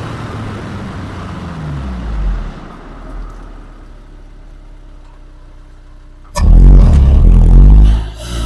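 Honda S2000 AP1's 2-litre four-cylinder engine heard at the intake and tailpipe: revs fall off about 2 seconds in and it runs quietly at low revs, then about 6 seconds in it opens up suddenly at full throttle, very loud for about a second and a half, and drops again near the end.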